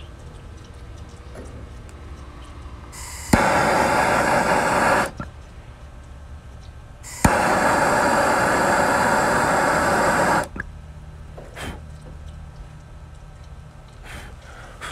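MAPP gas torch fired twice, each time opening with a sharp click and then burning with a steady rushing hiss, first for under two seconds and then for about three. It is heating an aluminum coil joint for brazing in short bursts to keep the heat light.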